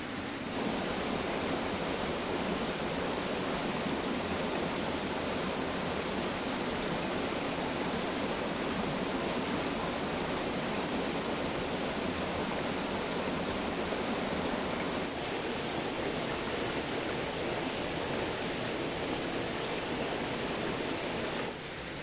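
Small waterfall splashing steadily over rocks into a stream pool, a continuous rushing of water.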